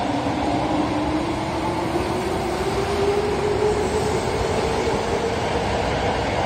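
Osaka Metro 21 series subway train running along an underground platform: a steady rumble of wheels on rail with a traction-motor whine whose tones slowly shift in pitch.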